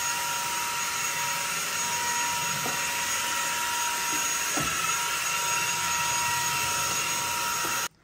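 Teqqo Powerstick Plus cordless stick vacuum running steadily, a whine over the rush of suction, as its powered floor head is pushed along a hard floor. Two faint ticks come a few seconds in, and the sound cuts off suddenly just before the end.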